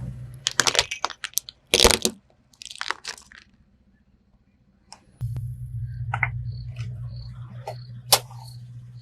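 Something crunching and cracking as a car's tyre rolls over it: a quick run of sharp crackles in the first three seconds. About five seconds in, a steady low hum starts, with a few scattered clicks over it.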